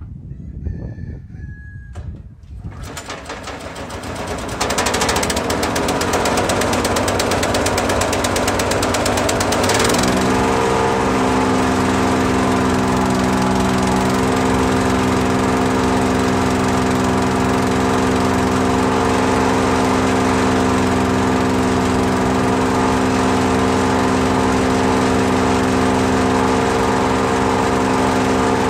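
Petrol engine of a Hecht 6642 wood chipper starting up about three seconds in, picking up over the next couple of seconds, then settling about ten seconds in into a steady, even run.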